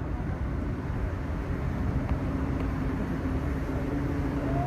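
Steady low rumble of road traffic with a constant engine hum underneath.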